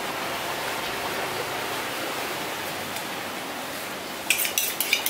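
Steady background hiss, then near the end a butcher's knife drawn quickly back and forth along a honing steel: a fast run of sharp metallic scraping strokes, about five a second.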